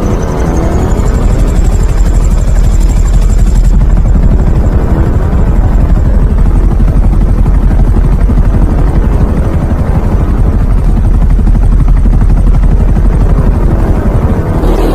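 Helicopter sound effect with a fast rotor chop over a heavy low rumble, and a thin high whine that rises about a second in.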